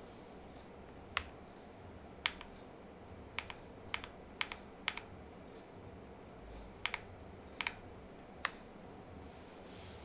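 Keystrokes on a mechanical keyboard with lubed Boba U4T tactile switches, POM Jelly keycaps and an aluminum plate: slow, scattered key presses, single or in quick pairs, about a dozen clicks with pauses between them, stopping about a second and a half before the end.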